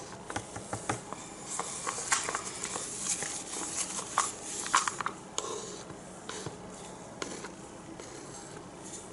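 Plastic paint cups being handled while fluid acrylic paint is poured into a plastic cup: light clicks and taps, most of them in the first five seconds, then fewer.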